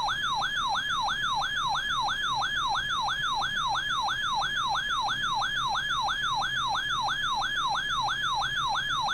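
Weather radio receiver's electronic alert siren, a loud fast falling chirp repeated about three times a second over a higher wavering tone. It signals that a warning has been received.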